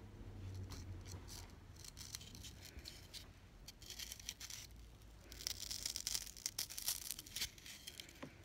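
Dry scratching and crackling from fingers handling a block of green floral foam studded with tiny metal rose pins. Sparse at first, then denser and louder over the last three seconds as the block comes up close.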